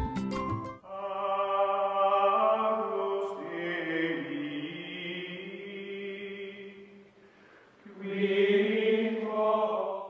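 Background music: a short tune of quick struck notes ends within the first second, giving way to slow music of long held chords. The chords fade to a low point about seven seconds in and swell back a second later.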